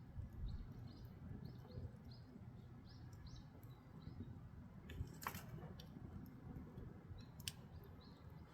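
Firewood burning in an agungi firebox: a low steady rumble of the fire with a sharp crackle about five seconds in and another near seven and a half seconds. A run of short high chirps sounds through the first half.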